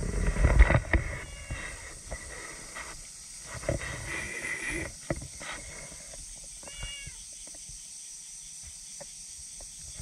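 Cats giving a few short meows. There is loud rubbing and brushing noise in the first second as a cat's fur and tail sweep across the microphone.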